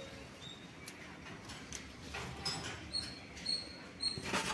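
Leafy plant stems and leaves rustling and snapping as they are handled and picked by hand, with scattered small clicks and a louder crackle near the end. Short high chirps repeat in the background.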